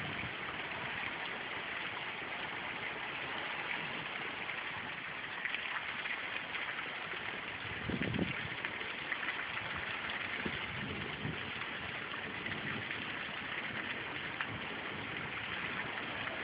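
Heavy storm rain falling, a steady hiss, with a brief low rumble about eight seconds in and a few fainter ones later.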